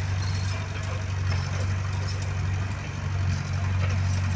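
Diesel engine of a construction machine running steadily with a low, even drone.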